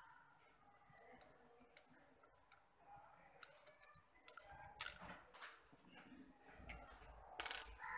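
Faint, irregular metallic clicks and scrapes of a spark plug spanner being turned by hand to unscrew the spark plug from a Honda Livo motorcycle's cylinder head, the loudest clicks about five seconds in and near the end.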